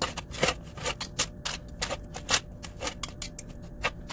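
Knife and fork cutting roasted chicken into small pieces, the blade tapping down through the meat onto the board in a quick, irregular run of sharp clicks.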